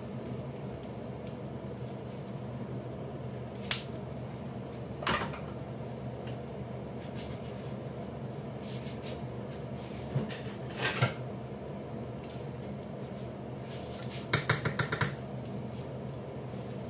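Kitchen dishes and cutlery being handled: a few separate clinks and clatters, then a quick run of knocks near the end, over a steady low hum.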